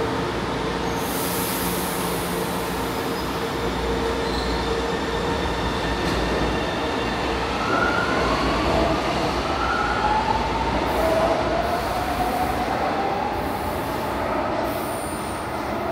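São Paulo Metro Line 2 train moving through the station: a continuous rumble of wheels and running gear, with a steady tone early on and gliding, rising whines in the middle.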